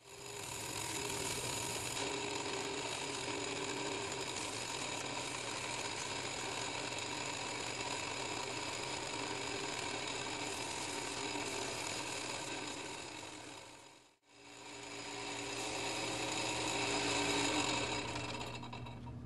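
Home-built cork lathe running steadily, a motor whir with fine sandpaper held against the spinning cork rod handle. The sound drops out for a moment about two-thirds of the way through, then comes back.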